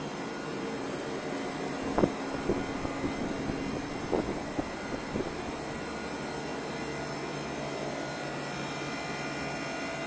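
A 35 kW heat pump running, with the steady drone and hum of its inverter-driven Panasonic Sanyo hermetic scroll compressor and condenser fans. A few light knocks come between about two and five seconds in.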